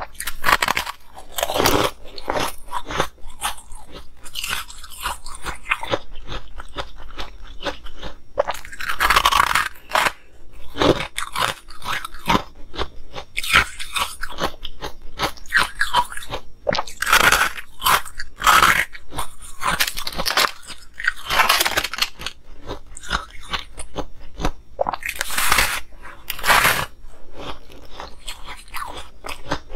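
Close-miked biting and chewing of frosted, coloured moulded ice: crisp, dense crunching that goes on without a break, with louder crunches from fresh bites every second or two.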